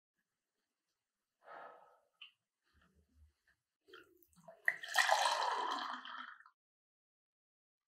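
Faint scattered clicks and knocks, then a short rush of running or splashing water about five seconds in that starts abruptly and stops after under two seconds.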